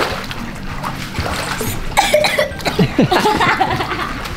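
Children splashing about in a swimming pool, water splashing in irregular bursts, busier in the second half, with children's voices and laughter over it.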